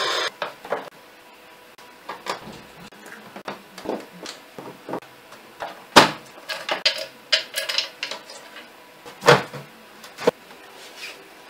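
Plastic rear cover of an LG 32LN5400 LED TV being handled and pried off, with scattered clicks, knocks and creaks. The loudest knocks come about six seconds in and again about three seconds later.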